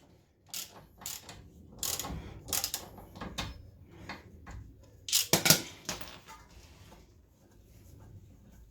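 Ratchet and socket with an extension bar undoing a 12mm brake caliper bolt: irregular metal clicks and knocks in short bursts, the loudest cluster a little past halfway, fading toward the end.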